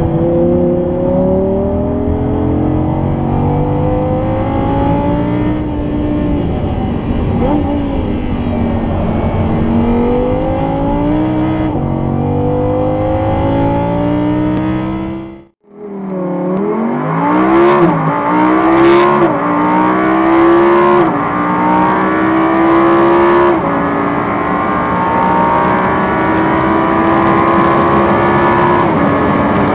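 Audi R8 V10 Plus's 5.2-litre V10 heard from inside the cabin, its pitch rising and falling through the gears. About halfway through the sound cuts out for a moment, then the engine pulls hard at high speed, with three upshifts before it holds a steady high note at full acceleration.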